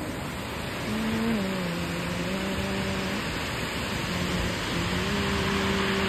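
Ocean surf washing and breaking among the rocks of a cove, a steady rush of white water. Over it come two phrases of held notes that step in pitch, at about a low voice's register: a faint melody from a voice or instrument.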